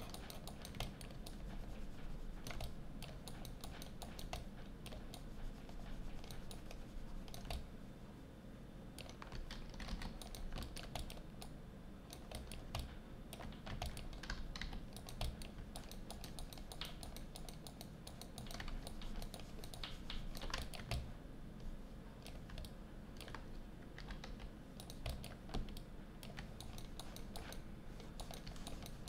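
Irregular, fairly quiet clicking and tapping of a computer keyboard, many keypresses in quick, uneven succession, over a steady low hum.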